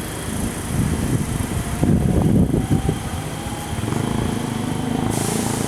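Electric commuter train pulling out of the station, its wheels rumbling and clattering over the rails. A rush of wind noise comes in near the end.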